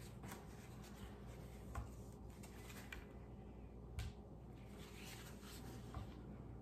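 Handling sounds at a wire soap cutter: a loaf of cold process soap slid along the plastic cutting board and the hinged wire arm swung up and back, with light scrapes and three soft knocks about two seconds apart.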